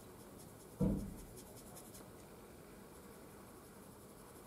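Faint scratching and dabbing of a small paintbrush working oil paint onto a miniature bust's face, with a single dull thump about a second in.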